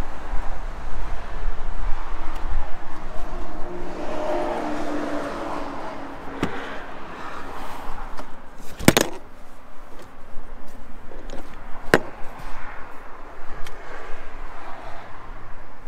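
Rear seatback of a car being folded down: sharp plastic-and-metal clicks from the release latch and seat, with the loudest knock a little past the middle and another click about three quarters of the way through, over outdoor background noise.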